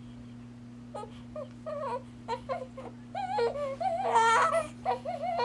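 Newborn baby crying: short, wavering cries begin about a second in and build into longer, louder cries, loudest about four seconds in.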